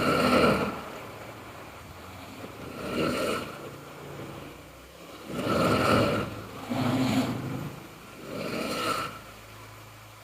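A sleeping person snoring, about five snores in ten seconds, each a short breathy burst with quieter breathing between.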